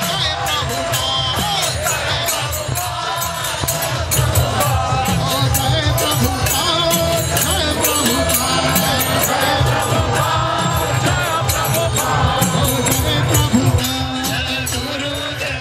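Kirtan: a crowd chanting a devotional mantra together to hand cymbals and drum. The cymbals strike a fast, even beat of about four strokes a second.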